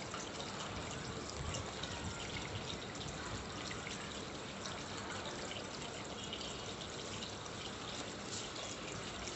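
Small scissors cutting through a sheet of glittery sticker-type art paper, faint snips over a steady background hiss.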